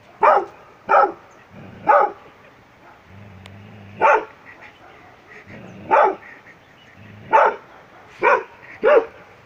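A dog barking in single, loud barks, about eight of them with uneven pauses between.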